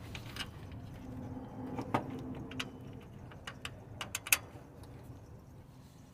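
Scattered metallic clicks and taps as a replacement Bosch alternator is handled and seated into its mounting bracket on a truck engine. The sharpest clicks come in a quick cluster about four seconds in.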